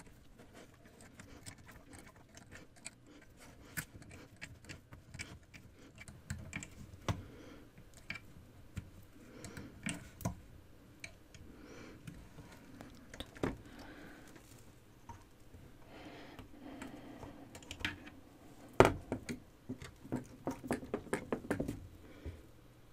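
Metal-tipped loom knitting hook and fingers clicking and scraping against the plastic pegs of an afghan knitting loom as yarn loops are lifted over. The light clicks come irregularly, with a sharp knock about three-quarters through and then a quick run of clicks.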